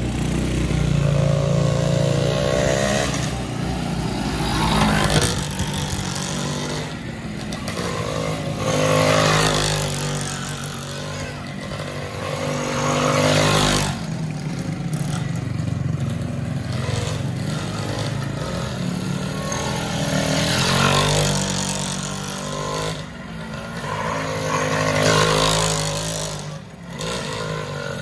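Tuned 116cc underbone racing motorcycle revving hard as it passes again and again through a corner, the engine note swelling and rising on each pass and fading in between.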